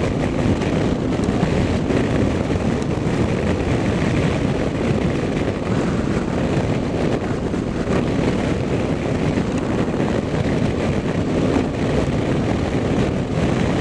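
Steady road and engine noise of a moving car, an even rumbling hiss with no distinct events.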